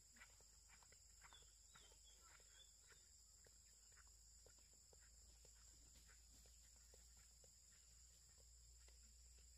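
Near silence: faint footsteps on a grassy track, a few soft ticks a second, thinning out as the walkers move away, over a steady faint high-pitched drone.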